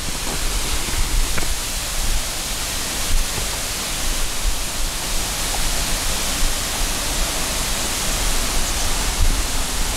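Water rushing over a small dam, a loud, steady hiss.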